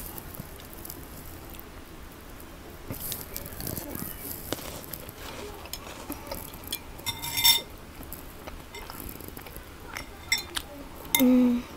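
Quiet chewing of milk-soaked Maltesers, with a metal spoon clinking once against a glass bowl about seven seconds in. A short hummed "mm" comes near the end.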